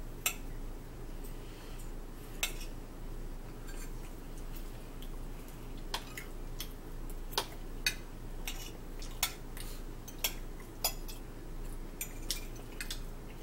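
Metal forks clinking and scraping against ceramic plates while two people eat, as sharp irregular clinks about once a second, over a faint steady low hum.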